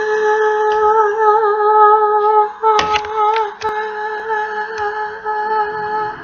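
A woman singing unaccompanied, holding long drawn-out notes with a slight waver. The notes break off briefly about three seconds in, where a few sharp clicks sound, then one more long note is held.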